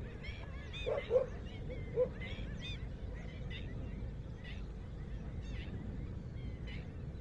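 Small birds chirping over and over, with a few short lower calls from a larger bird about one and two seconds in, over a steady low background noise.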